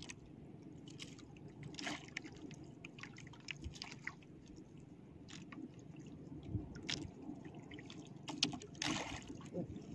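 Water lapping gently against the hull of a small outrigger boat, with scattered faint clicks of handling.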